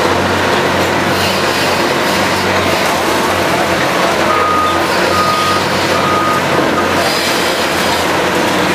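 Liebherr R 944 C tunnel excavator working at the rock face: a loud, steady machine rumble with a low hum. Around the middle comes a short series of high beeps from a warning beeper.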